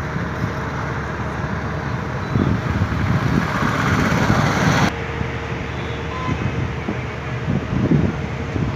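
Road traffic: a steady wash of passing vehicles. It swells louder for a couple of seconds, then drops suddenly about five seconds in and runs on more quietly.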